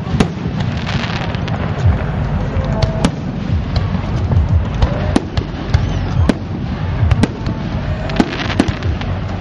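Aerial fireworks bursting: a fast, irregular run of sharp bangs and crackles, several a second, over a steady low rumble.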